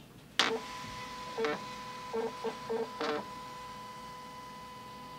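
Small sheet-fed printer printing a ballot: a sharp click about half a second in as it starts, then a steady motor whine broken by five short mechanical chugs as the paper feeds, whining on steadily after about three seconds.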